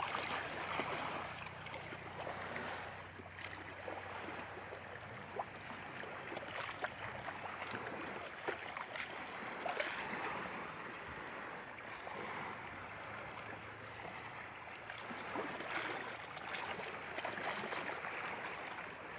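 Water lapping and washing at the shore: a steady, even wash flecked with small irregular splashes and ticks.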